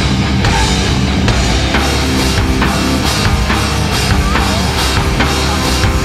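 Rock music with a steady drum beat.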